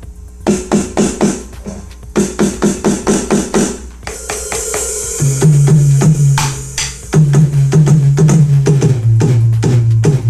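AMW ED3 electronic drum kit, preset kit 4, played through a loudspeaker: two quick runs of drum hits, a cymbal crash, then a very deep sustained bass tone under further hits.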